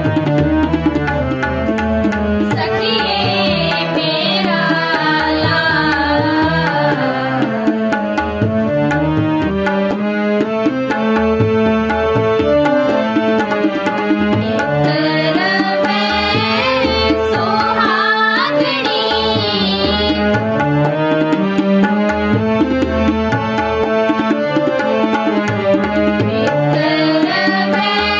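Gurbani kirtan in Raag Sri: two harmoniums holding sustained chords under a steady tabla rhythm, with girls' voices singing sung phrases about two seconds in, again around the middle, and near the end.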